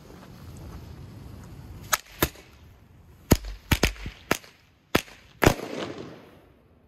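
Tric Trac frog firecracker (a folded jumping cracker) fizzing on its fuse for about two seconds, then going off in a string of about eight sharp bangs at uneven intervals over some three and a half seconds.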